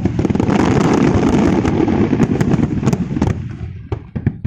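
Aerial fireworks going off in quick succession: a dense run of sharp bangs and crackles over a low rumble, thinning out over the last second.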